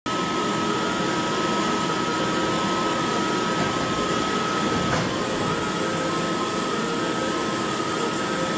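CNC lathe spindle turning a metal cylinder while the tool machines its bore: a steady mechanical whirr with a constant high whine, joined by a second, higher whine about five seconds in.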